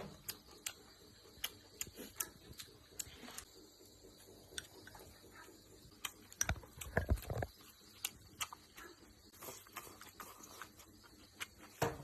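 Eating sounds: chopsticks clicking and tapping against a bowl in irregular light clicks, with a few louder low thuds about six to seven seconds in.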